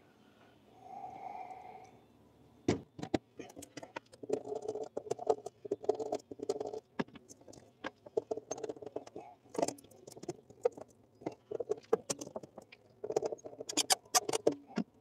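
Quick, irregular clicks, taps and rattles of hand tools and wire terminals as a new contactor is wired into an air conditioner's condensing unit.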